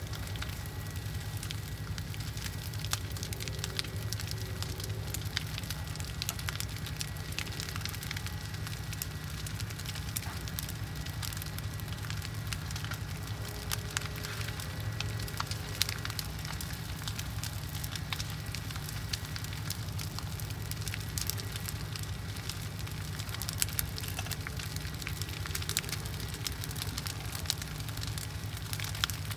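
Large brush-pile bonfire burning, with a steady low rumble and frequent sharp crackles and pops from the burning branches.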